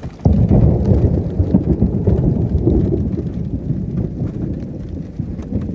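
Wind from a dust tornado buffeting the phone microphone: a loud, low rumble with crackling, jumping louder a moment in.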